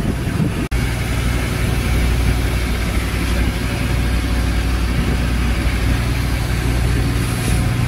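Outrigger boat's engine running steadily under way: a constant low drone under a steady rush of noise. The sound drops out for an instant just under a second in.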